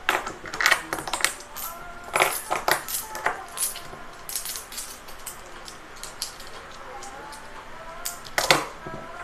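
Philippine one-peso coins clinking as they are counted by hand and stacked: a run of sharp metallic clicks with a short ring. The clicks come thickest about a second in and again near the end, with a sparser stretch in the middle.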